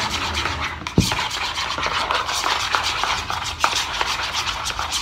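Spoons stirring and scraping a foamy glue-and-shaving-foam slime mixture in plastic bowls: a continuous fast scraping, with one sharper knock about a second in.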